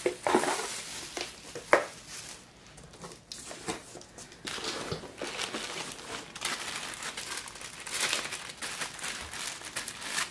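Clear plastic wrapping crinkling and cardboard rustling as small parts are pulled from their packaging, with a sharp knock a little under two seconds in.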